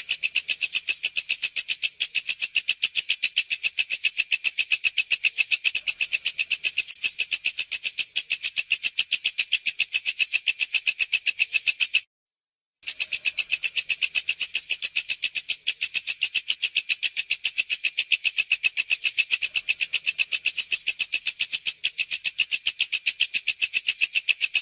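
A walang kecek bush cricket (katydid) calling: a high-pitched, rapid, even train of pulses that breaks off for under a second about halfway through, then resumes.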